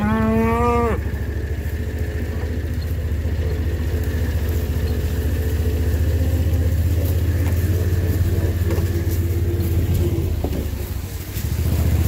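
Small off-road vehicle engine running steadily at a low, even speed. It eases off briefly near the end, then picks up again. A short rising cry is heard right at the start.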